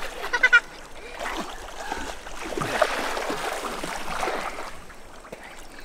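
River water splashing and churning as a child moves about waist-deep in it, loudest about halfway through, with a short high-pitched shout from a child right at the start.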